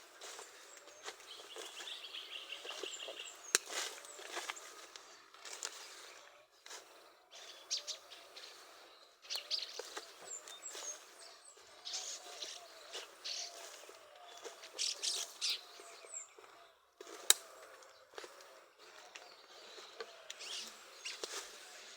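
Small birds chirping now and then, with scattered short rustles and knocks throughout and a brief trill near the start.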